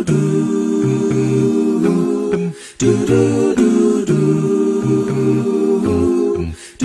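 A cappella vocal group singing: several voices hold close harmonies over a sung bass line that steps in short pulses, with a brief break about two and a half seconds in.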